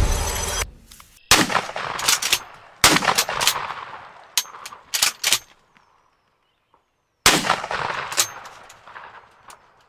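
Music cuts off about half a second in, then three shotgun shots: the first about a second in, the second about a second and a half later, the third some four seconds after that, each with a fading tail. A few short sharp knocks fall between the second and third shots. Three shots were needed to bring down one turkey.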